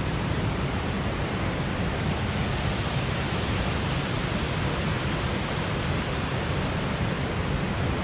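Waterfall pouring into a rocky gorge: a steady, even rush of falling water with no change in level.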